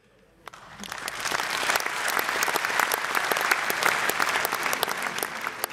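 Concert audience applauding a rock band, the clapping swelling over the first couple of seconds and easing off near the end.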